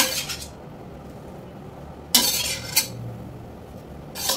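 Spatula scraping and clanking against a wok in short bursts of strokes: one at the start, a longer one about two seconds in, and another near the end.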